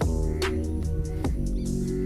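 Background electronic music with a steady beat and sustained bass notes.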